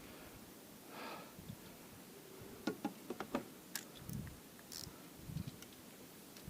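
Faint, scattered sharp clicks and a few soft low knocks, with a breath about a second in.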